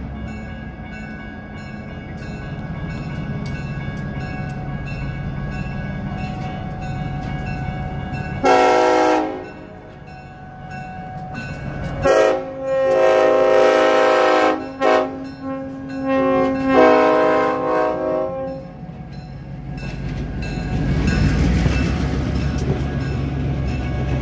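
Union Pacific SW10 diesel switcher approaching with its engine running, then sounding its multi-note air horn: one short blast, then a longer series of blasts with brief breaks. Afterwards the locomotive and the passenger cars roll past close by with a rising rumble of engine and wheels.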